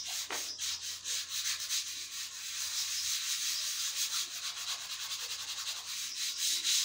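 Hand sanding a wooden board: sandpaper rasping across the wood in quick, even back-and-forth strokes.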